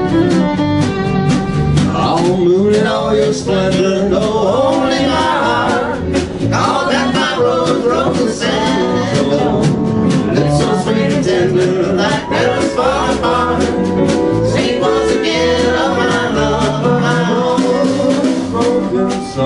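Live country string band playing, with the fiddle audible, and a woman and a man singing from about two seconds in.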